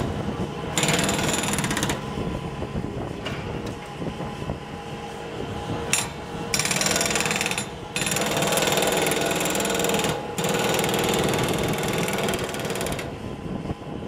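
Hydraulic breaker on a Bobcat S300 Turbo skid steer hammering concrete in runs of rapid blows: a short burst about a second in, then a long run from about six and a half seconds until near the end, broken briefly twice. The skid steer's turbo diesel engine runs underneath throughout.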